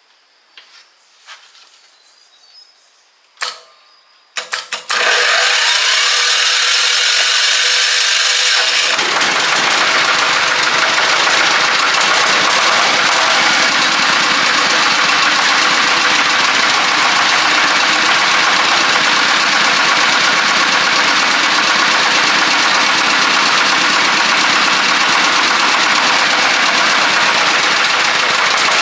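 Farm truck engine being started: after a few faint clicks, it cranks with a rising whine for about four seconds, then catches about nine seconds in and runs steadily and loudly.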